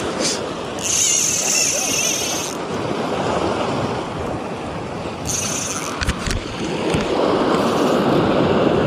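Sea waves washing on the shore and wind on the microphone, a steady wash throughout. There are a couple of stretches of high hiss and a few sharp knocks from handling about six and seven seconds in.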